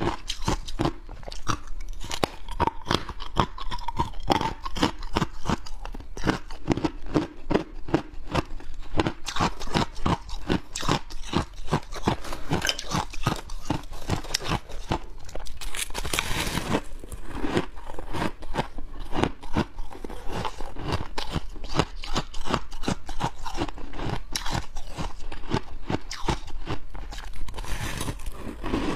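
Close-miked biting and chewing of hard white ice: a fast, unbroken run of sharp crunches, several a second, with one longer, noisier crunch about halfway through.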